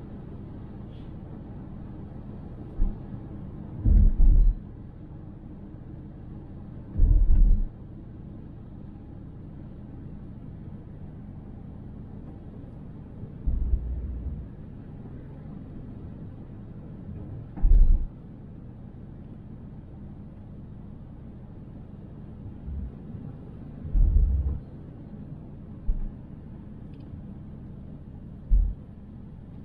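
Car driving: a steady low road-and-engine rumble, broken every few seconds by a deep thump, about nine in all.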